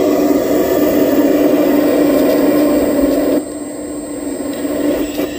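Radio-controlled model excavator's motors running with a steady hum as the bucket swings and dumps its load. The hum drops in level about three and a half seconds in and builds up again near the end.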